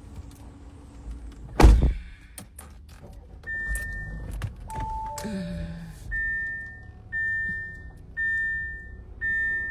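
A car door shuts with a heavy thunk, then the car's warning chime sounds: a single high beep repeating about once a second, four times in a row, after a few shorter beeps.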